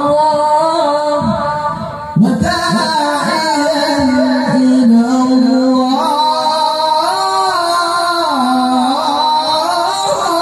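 A male qari chanting Quran recitation in the melodic tilawah style into a microphone, holding long ornamented notes that slide between pitches. He breaks off briefly about two seconds in, then starts a new phrase.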